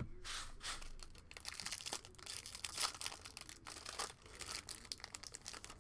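Foil wrapper of a 2020 Topps Pro Debut jumbo pack crinkling and tearing as it is ripped open by hand, a run of irregular crackles.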